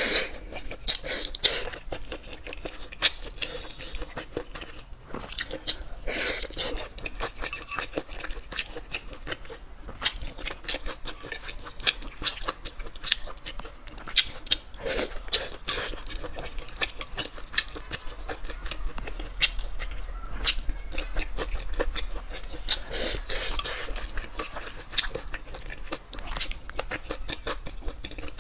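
Close-miked eating: chewing and crunching, with utensils clicking and clinking against dishes in quick, irregular strokes.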